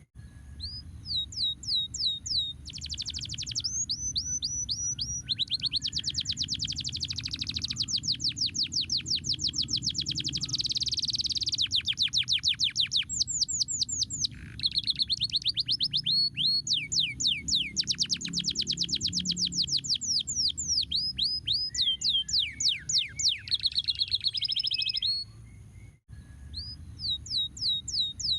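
Domestic canary singing a long song of fast trills, each a run of short falling whistles repeated many times a second, with a few steadier buzzing rolls. It breaks off briefly about 25 seconds in and starts again, over a low background rumble.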